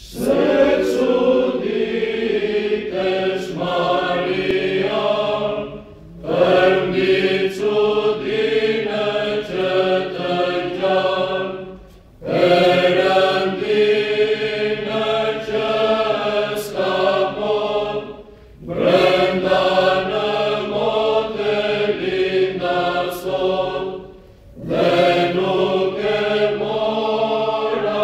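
Mixed choir of men and women singing Byzantine chant, in phrases of about five to six seconds separated by short breaks for breath.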